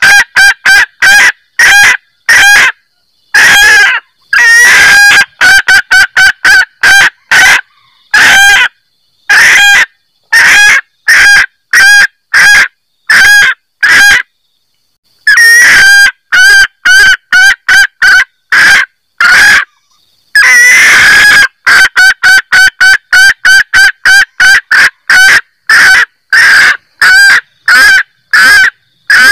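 Female junglefowl cackling 'kek-kek-kek': runs of short, sharp, loud notes, several a second, broken by brief pauses and a few longer drawn-out notes. It is the hen's call that draws males in.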